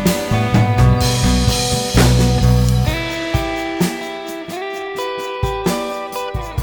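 Background music: guitar with a drum kit, with heavy bass for the first three seconds before thinning out to plucked notes and light drum hits.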